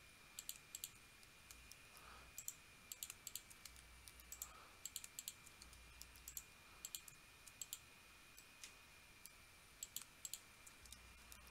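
Quiet computer mouse and keyboard clicks, short and irregular, several in quick pairs, over a faint steady high-pitched tone.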